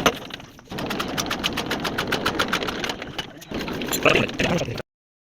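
Old diesel engine running with a fast, even knocking beat of about ten strokes a second, dipping briefly twice, then cutting off suddenly near the end.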